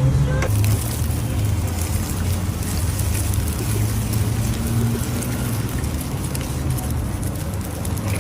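Food frying in hot oil over a gas burner: a steady low rumble, with crackling sizzle that starts about half a second in.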